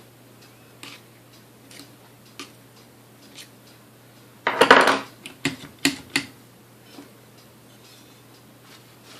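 Metal parts of a vintage Sunbeam Mixmaster clicking and clattering as its beater ejector mechanism is worked by hand: a few light clicks, then a loud rattle about four and a half seconds in, followed by several sharp clacks.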